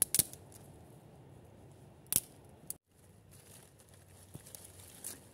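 Twigs cut with hand pruning secateurs: two sharp snips, one at the start and one about two seconds in. After a short break, cut sticks click and rustle as they are gathered into a bundle.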